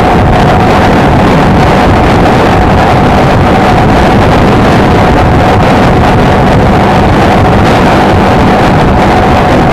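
Honda XLR125R's single-cylinder four-stroke engine running at a steady cruising speed, with a steady drone and heavy wind noise on the microphone.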